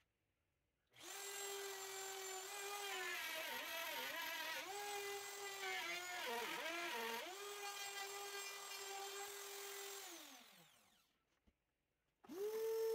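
DeWalt plunge router starting up and whining at full speed, its pitch sagging twice as the bit bites into the walnut while cutting dados, then spinning down with a falling whine after it is switched off. Near the end a second motor starts with a steady hum.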